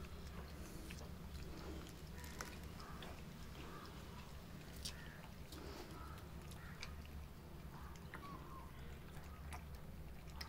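Month-old puppies making short whimpering squeaks while licking and sucking at a small feeding bottle, with wet clicking mouth sounds scattered through.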